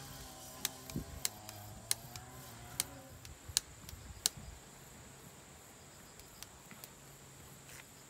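Split firewood kindling clacking sharply, seven or eight knocks of wood on wood and on the metal fire pit, mostly in the first half, as the sticks are laid into the pit. A faint steady high drone sits underneath.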